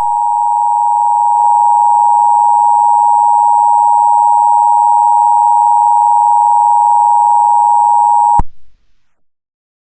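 Emergency Alert System attention signal: a loud, steady two-tone alarm held for about eight seconds, then cutting off suddenly.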